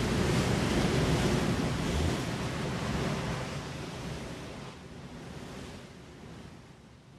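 Ocean surf washing in, a steady sound of waves that fades out gradually over the last few seconds.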